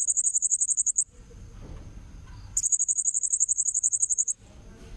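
Blue-crowned hanging parrot (serindit) call recording used as a bird lure: a very rapid, high-pitched pulsed trill that stops about a second in, then comes again for nearly two seconds from about two and a half seconds in, over a low background rumble.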